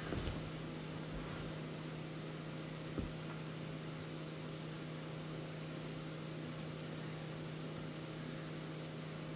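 Steady low background hum with an even hiss, broken once by a faint soft knock about three seconds in.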